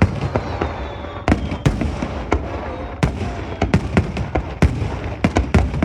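Fireworks display: aerial shells bursting in a rapid, irregular string of sharp bangs, about a dozen in a few seconds, over a steady bed of rumble and crackle.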